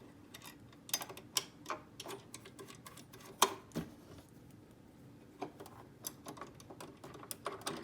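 Scattered small metallic clicks and taps, one sharper about three and a half seconds in: a small screwdriver and screws worked against the metal needle plate as it is screwed back onto a Brother LX2375 sewing machine.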